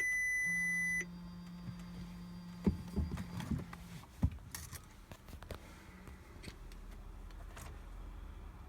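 Audi A3 8P 1.9 TDI with the ignition switched on before starting: a single beep lasting about a second, a low steady hum for about three more seconds, then a few light clicks and knocks.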